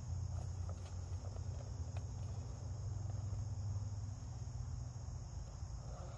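Steady high-pitched insect chorus over a low steady hum, with a few faint clicks as an iClimb folding camp table's frame and poles are handled and fitted together.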